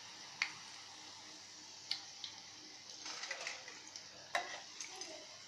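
Hot oil sizzling steadily in a frying pan while a metal slotted spoon lifts out deep-fried bread-and-potato balls, with scattered sharp clicks of the spoon against the pan.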